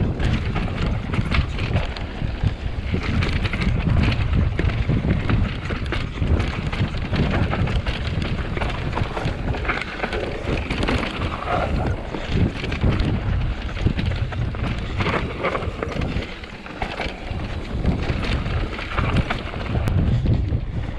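Mountain bike riding fast down a dirt trail: wind buffets the microphone over the rush of tyres on dirt, with constant clattering and knocking from the bike over bumps.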